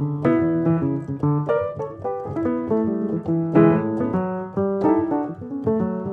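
Background music: a gentle piano melody, one note after another with chords beneath.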